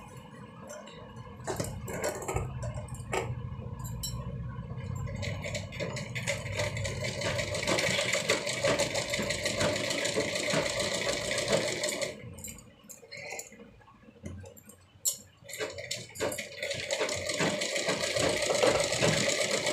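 Sewing machine stitching a folded fabric strip, running steadily in two spells. It stops about twelve seconds in, and a few scattered clicks fill a pause of about four seconds before it starts running again.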